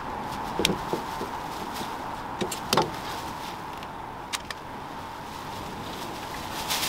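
Hand-held caulking gun clicking and knocking as seam sealer is squeezed out along the seams of a painted steel body panel: scattered sharp clicks, three in the first second and a half, the loudest near three seconds in, and a quick pair about four and a half seconds in, over a faint steady whine.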